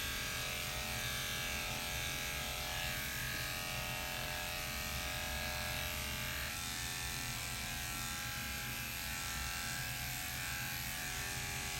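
Electric dog grooming clippers buzzing steadily while cutting a dog's coat, with music playing underneath.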